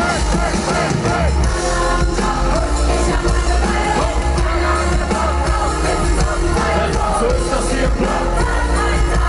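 Live band playing on a festival stage with a vocalist over heavy bass, recorded from within the crowd.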